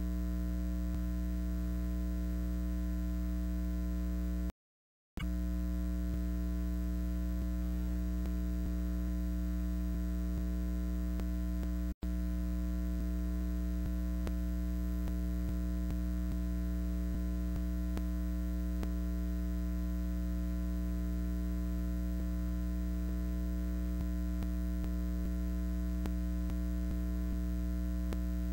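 Steady electrical mains hum with a fixed low pitch and no game sound. It cuts to silence for about half a second about four and a half seconds in, and breaks again for an instant about twelve seconds in.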